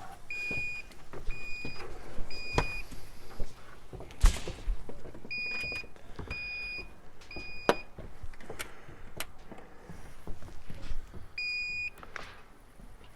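Electronic beeps, each one short steady high tone, in two sets of three about a second apart and a single beep near the end, with scattered sharp clicks and knocks in between.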